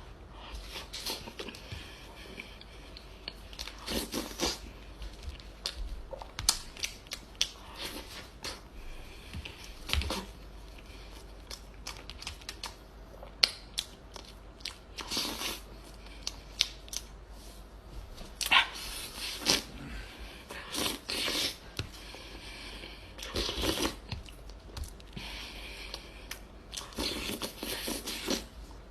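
Close-miked eating sounds: chewing and wet mouth noises, with many sharp clicks and irregular bursts of noise.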